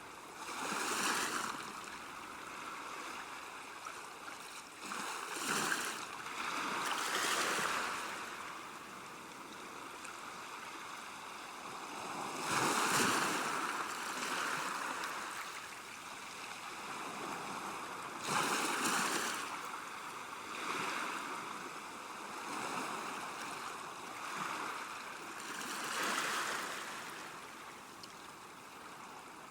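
River water washing against a bank: a steady rush that swells and eases every few seconds, with stronger surges about a second in, around six to seven seconds, thirteen seconds, nineteen seconds and twenty-six seconds in.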